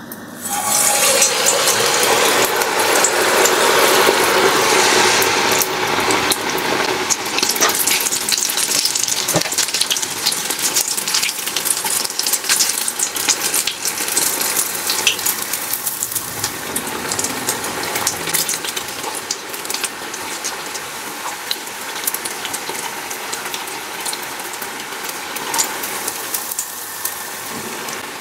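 Sel roti batter hitting hot ghee: the fat sizzles up suddenly about half a second in, loudest for the first several seconds. It then settles into a steady crackling sizzle as the ring of batter fries.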